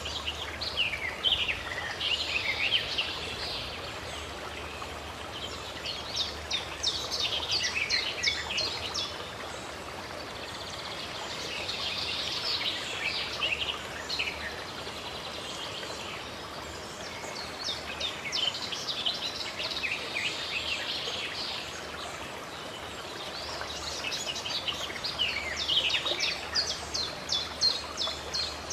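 Birds singing in bouts of rapid high chirps every few seconds over the steady rush of running water.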